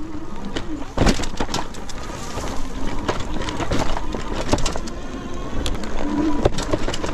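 Engwe M20 electric fat-tire bike rattling as it is ridden over a bumpy dirt trail: a fast, irregular clatter of knocks, with a hard one about a second in. The riders put the rattle down to the fenders and to the chain, which has no clutch and rattles around.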